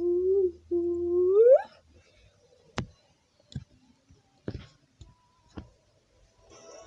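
A voice holds a long note with one brief break, then slides sharply up in pitch. After it come four sharp knocks, roughly a second apart.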